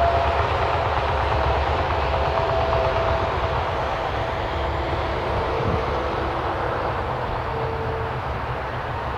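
Steady rumble of a large passing vehicle, with faint tones that slowly slide down in pitch as the sound gradually fades.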